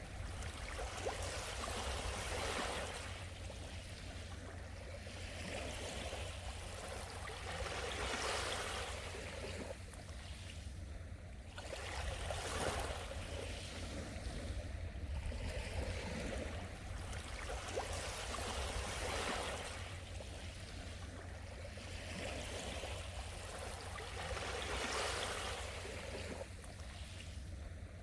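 Sea waves washing onto the shore, the surf swelling and fading every few seconds over a steady low rumble.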